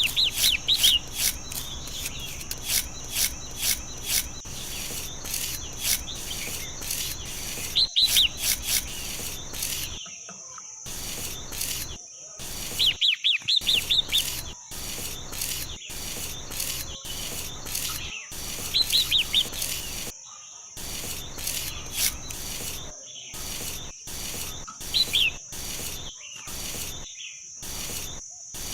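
Small birds chirping in short bursts of quick notes, a cluster every couple of seconds, over a steady high-pitched hiss. The sound drops out abruptly many times.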